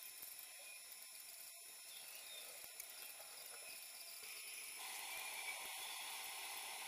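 Faint steady hiss of room tone and microphone noise, with a few thin high tones, getting slightly louder about four to five seconds in.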